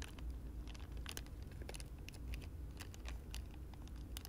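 Thin plastic peel pouch of a sterile cell strainer crinkling and crackling as gloved hands open and handle it: faint, irregular clicks and rustles over a low steady hum.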